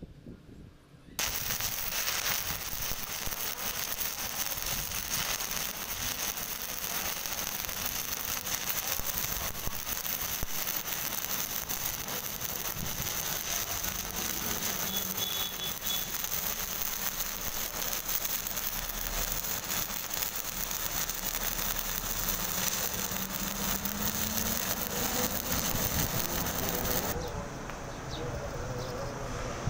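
Stick (shielded metal arc) welding arc crackling and sizzling steadily while a bead is run around the edge of a round steel plate. It starts about a second in and cuts off a few seconds before the end, when the arc is broken.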